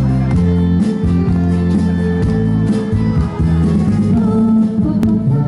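Live amplified music: acoustic guitar and electronic keyboard playing a Korean pop song, with a voice singing.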